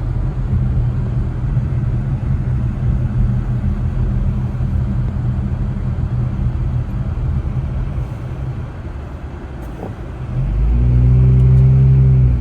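Steady low rumble of a car's engine and tyres heard from inside the moving car. It eases off briefly, then about ten seconds in the engine note comes up louder and steadier as the car accelerates.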